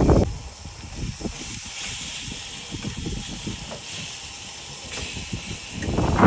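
Tuna steaks sizzling on a small portable grill, a steady hiss, with bumps and knocks of handling near the start and again near the end as the steaks are turned with tongs.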